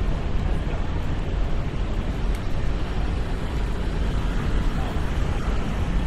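Outdoor city street ambience: a steady low rumble with no distinct events.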